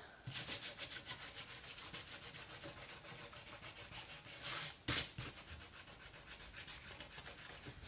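Fingertips rubbing dried, salt-laden masking fluid off painted paper: a fast, even run of gritty scratching strokes, several a second, with one louder scrape about five seconds in.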